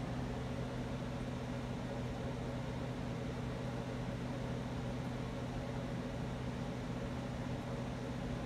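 Spirit box sweeping through radio frequencies: a steady static hiss with an even low hum underneath.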